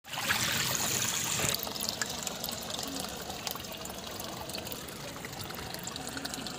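Water churned and trickling behind a small homemade foam boat driven by a DC-motor propeller. The sound is louder for about the first second and a half, then settles to a steadier, quieter wash.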